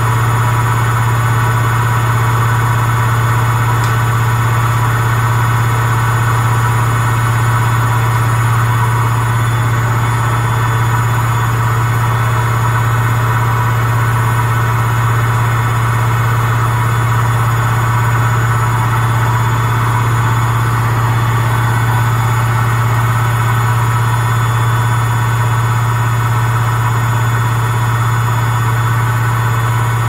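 Samsung front-loading washing machine in its 1200 RPM spin cycle, the drum spinning at full speed: a steady, loud low hum with a fainter steady whine above it.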